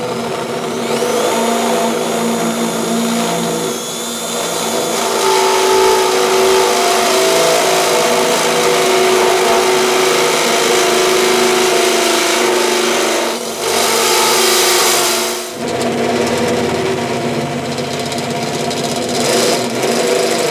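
Cordless drill running a 1 1/4-inch step drill bit through the smoker's steel wall, widening a pilot hole. The motor rises to speed at the start, then runs steadily as the bit cuts, easing off briefly twice in the middle.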